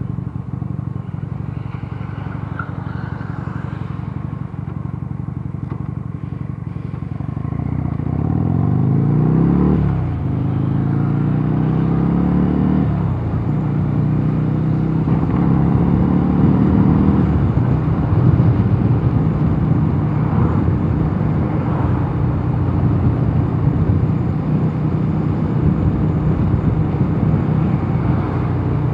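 Mondial Nevada 250 motorcycle engine pulling up through the gears. Its pitch climbs, drops at a gear change about a third of the way in, and climbs again through one or two more shifts. It then holds a steady note at cruising speed, with road and wind rumble underneath.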